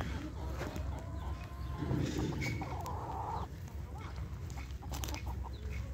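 Laying hens clucking, with a drawn-out call about half a second in and a louder, rougher call about three seconds in.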